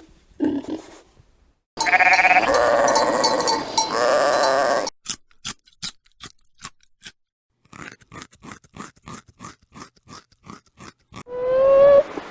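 A sheep bleating, a loud wavering call lasting about three seconds. It is followed by a long run of sharp clicks, a few a second, and another short call begins near the end.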